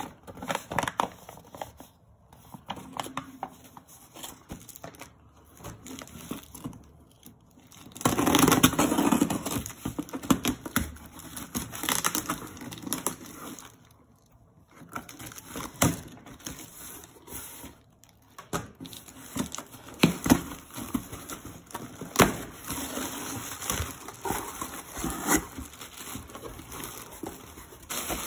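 Hands opening a cardboard shipping box: packing tape cut with scissors and pulled loose, cardboard flaps scraping, and plastic air-pillow packing crinkling near the end. The sound is irregular rustling and tearing with scattered sharp clicks, loudest a third of the way in.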